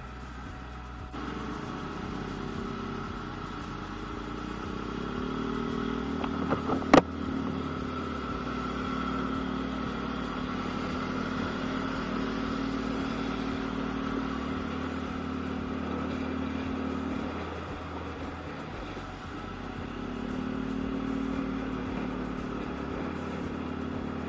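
Yamaha Aerox scooter's engine running under way, its pitch rising about a fifth of the way in, holding steady, easing off past the middle and rising again near the end. A single sharp click sounds about seven seconds in.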